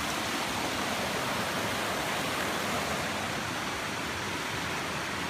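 Small woodland creek rushing steadily under a wooden footbridge, running high after heavy rain.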